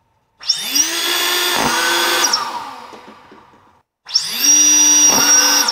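A homemade high-rate Nerf ball blaster's three brushless motors spinning up with a rising whine and running in two bursts. The first lasts about three seconds and winds down with a falling pitch; the second starts about four seconds in and runs about two seconds.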